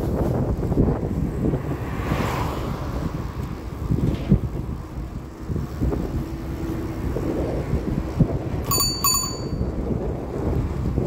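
Wind buffeting the microphone while riding a bicycle, a steady low rumble. Near the end a bicycle bell dings twice in quick succession.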